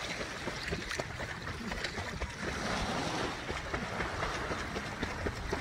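Small sea waves lapping steadily in shallow water at the shoreline, with wind rumbling on the microphone.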